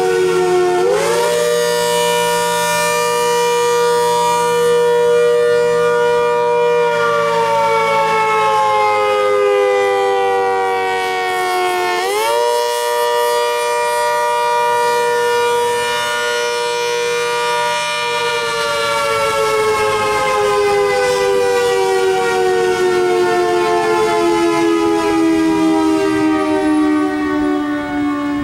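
ACA Hurricane 130 outdoor warning siren sounding a wail. Twice its pitch winds up quickly, holds steady for about six seconds, then slowly winds down.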